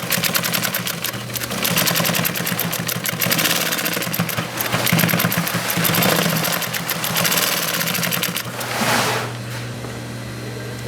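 Brother LT2-B875-7 double-needle industrial lockstitch sewing machine stitching at speed, a rapid even clatter of needle strokes over the steady hum of its motor. The stitching stops with a short swish about nine seconds in, leaving the motor humming.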